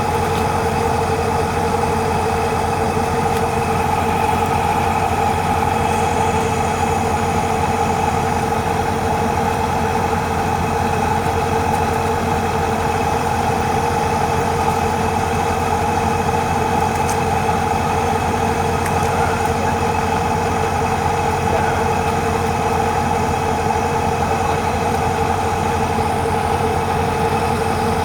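Engine running steadily at one even speed: a constant loud hum with a couple of steady tones over it, unchanging throughout.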